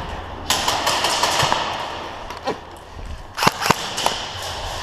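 Airsoft guns firing: a rapid burst of shots starting about half a second in, then a few single shots around three and a half seconds.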